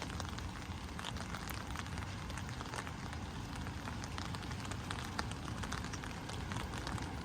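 Steady rain falling, with a dense stream of small drop impacts over a low rumble underneath.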